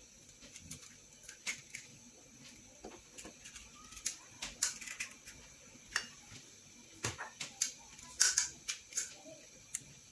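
Light, scattered clicks and taps of eggshell: eggs cracked against the rim of a plastic bowl and the shell halves knocking together as each yolk is passed back and forth to separate it from the white. The taps come in a small cluster near the end.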